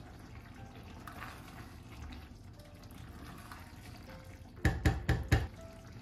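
A spoon stirring a pot of simmering leek stew, with a soft wet bubbling, then four quick sharp knocks of the spoon against the pot a little under five seconds in, the loudest sounds.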